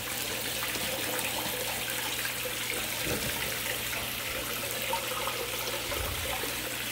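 Water running steadily from a recirculating sluice box's spray bar, down the sluice over the riffles and splashing into the tub below, with a low steady hum underneath.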